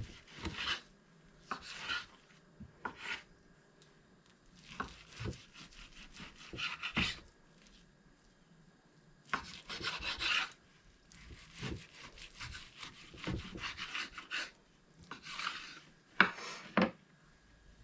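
Knife slicing thin beef into strips on a cutting board: irregular runs of short scraping strokes, with pauses between runs.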